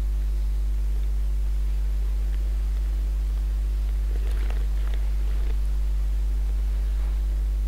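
Steady low electrical hum with a ladder of overtones, typical of mains hum picked up by the microphone's recording chain, with a few faint ticks about four to five seconds in.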